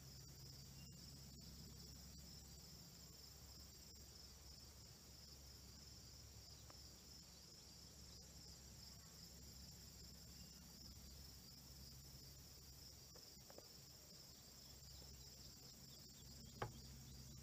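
Faint, steady insect chorus: a continuous high trilling with no break, with one short tick near the end.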